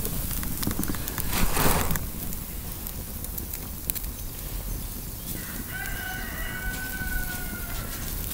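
Wood campfire crackling under a grill, with a short rustle near the start. A little past the middle comes one long pitched animal call lasting about two seconds.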